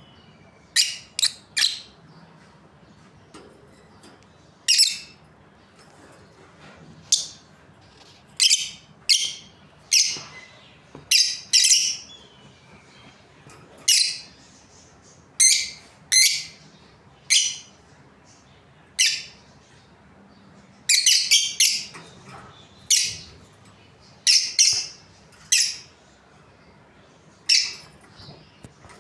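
Budgerigars chirping: short, sharp, high-pitched calls, some alone and some in quick runs of two or three, spaced irregularly throughout.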